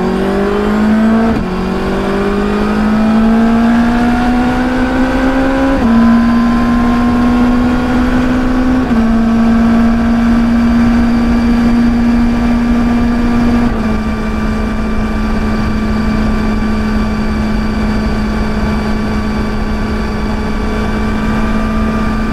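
2021 Suzuki Hayabusa's 1340 cc inline-four engine pulling through the gears. Its note rises and drops back at upshifts about one and a half, six and nine seconds in, then holds nearly steady at a cruise, with one more slight drop about fourteen seconds in.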